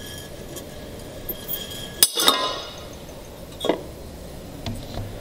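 Thick glass bottle cracking apart along the ring heated by a red-hot wire: one sharp, loud crack with a brief ringing tail about two seconds in. Later come two lighter glass clinks as the two halves are handled.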